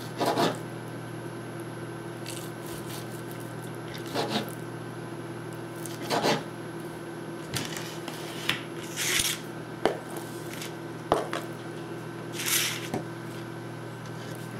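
Chef's knife cutting raw venison steak into cubes on a plastic cutting board: about ten irregularly spaced cuts and knocks of the blade on the board, with a couple of longer scraping sounds, over a steady low hum.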